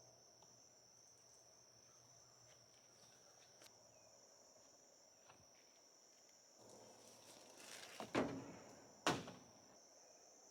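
Crickets chirring in a steady high tone. About eight seconds in come two sharp knocks about a second apart, the loudest sounds, after a short stretch of rustling.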